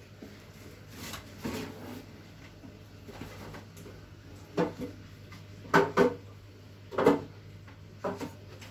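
Kitchen items being handled: a series of short knocks and clatters, loudest about six and seven seconds in, over a low steady hum.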